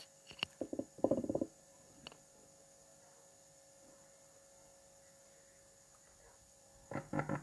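Faint steady electrical hum with a thin high tone above it, from the powered-up CRT television whose sound is not working.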